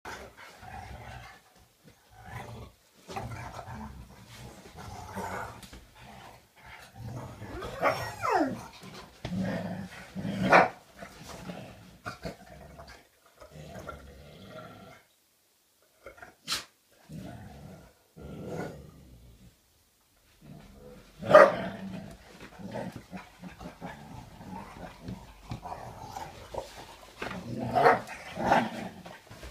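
Two English pointers play-fighting, with bursts of play-growling and a few short, sharp barks, plus one falling whine about a quarter of the way in. The sounds stop and start, with a couple of quiet pauses in the middle.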